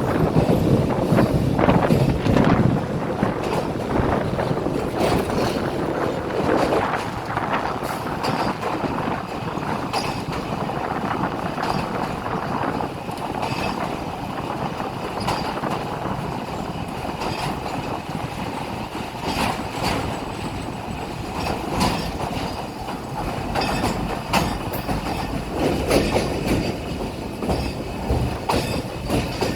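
Train running over a railway bridge: a steady loud rumble of wheels on rails, broken by sharp clacks at irregular intervals as the wheels cross rail joints.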